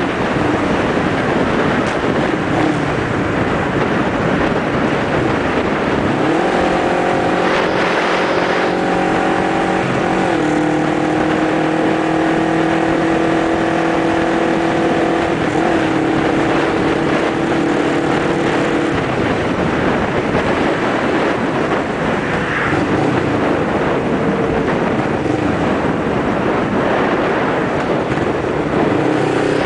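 Motorcycle riding at road speed: a steady rush of wind on the microphone, with the engine's drone coming through at a steady pitch from about six seconds in until around nineteen seconds, its pitch stepping a little twice along the way.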